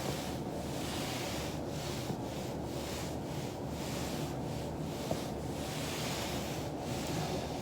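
Foam roller rubbing under a body rolled back and forth on it, an uneven scraping that swells and fades, with two faint clicks about three seconds apart.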